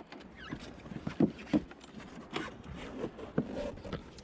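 Irregular knocks and bumps from people climbing into and shifting about in a small dinghy tied alongside a sailboat, several sharp thumps at uneven intervals.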